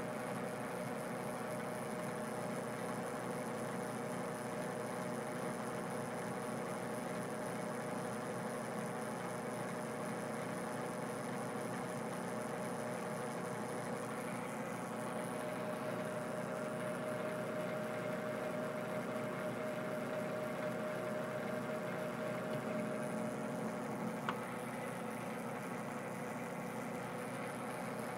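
Metal lathe running steadily on its motor and belt drive, a constant hum and whir while thread-cutting passes are taken. A small tick near the end.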